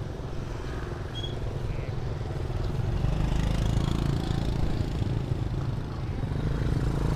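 Motorbike engines running with a low rumble that grows louder about three seconds in, over a general street din.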